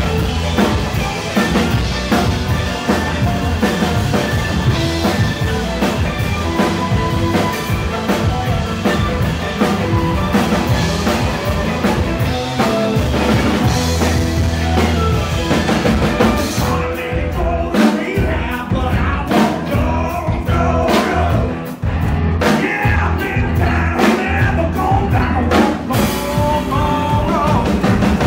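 Live blues-rock band playing an instrumental stretch: electric guitar lead over bass and drum kit. For several seconds after the middle the cymbals fall away, leaving sharp accented hits, before the full band comes back in.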